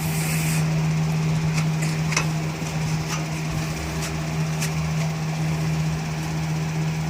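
A few light metallic clicks and taps as the rear brake caliper is slid back over the new brake pads, over a steady low background hum.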